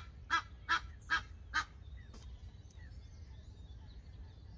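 Crow cawing: five caws in a row about 0.4 s apart, stopping about a second and a half in.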